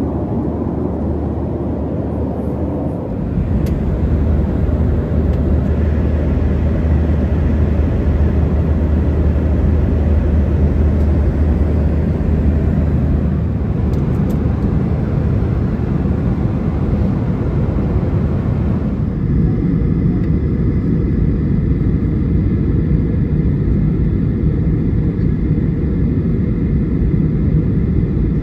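Steady airliner cabin noise inside a Boeing 737-900ER, a low rumbling hiss. It changes abruptly about 3 s in, getting louder, and again about 19 s in, turning duller.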